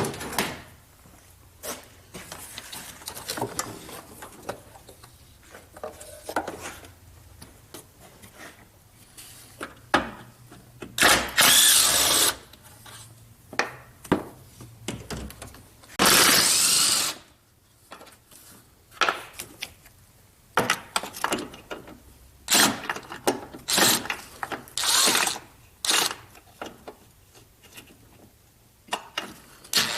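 Cordless power tool spinning out fasteners in several short bursts, the longest about a second, with the motor whine rising and falling in each. Between bursts, hand tools and loose parts clink and rattle as engine accessories are unbolted.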